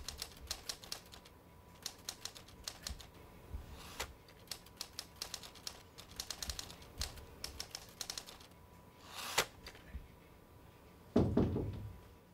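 Typewriter keys clacking in quick runs with short pauses between them. A brief scrape comes about nine seconds in, and a louder, deeper thump about eleven seconds in.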